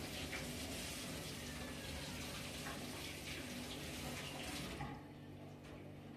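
Running water, as from a tap, that stops suddenly about five seconds in; a low steady hum carries on underneath.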